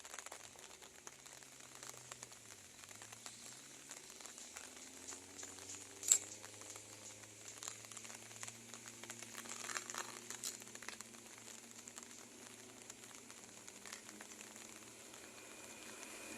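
Faint low hum of distant vehicle engines, dipping in pitch about two to three seconds in, with a faint hiss and a single sharp click about six seconds in.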